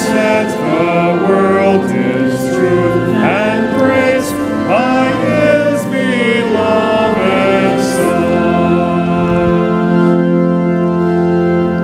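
A hymn sung by voices with pipe organ accompaniment, the singing and the organ moving through a line of the melody, then holding a long final chord for the last few seconds.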